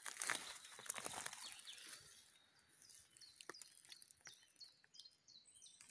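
Footsteps rustling and crackling through dry fallen leaves and twigs, stopping about two seconds in. Then quiet woodland with small birds giving short, high, falling chirps, repeated many times.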